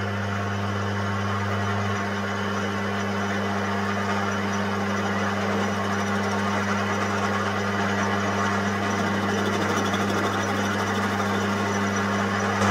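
Optimum TU-3008G metal lathe running steadily with a hum while a carbide-insert tool faces the end of a nut welded onto threaded rod, cutting off chips.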